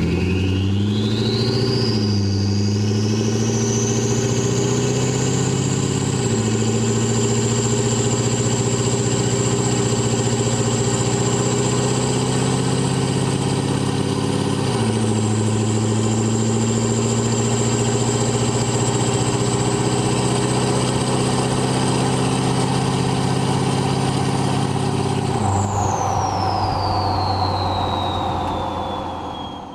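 Ford 6.7L Power Stroke V8 turbo-diesel with an H&S single turbo kit and 5-inch exhaust with muffler, accelerating at about quarter throttle. The turbo whistle spools up to a high pitch over the first few seconds and holds there, while the engine note climbs and steps down at upshifts about 6 and 15 seconds in. Near the end the throttle comes off: the engine note drops and the turbo whistle winds down.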